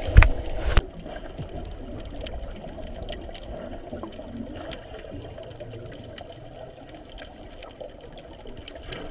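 Underwater sound picked up by a camera in the sea: a muffled, steady water noise with scattered small clicks. A few loud knocks come in the first second.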